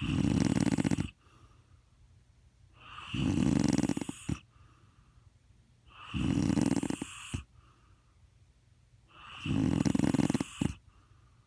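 A man snoring loudly: four rattling snores about three seconds apart, each lasting about a second. The last three each end with a short sharp click.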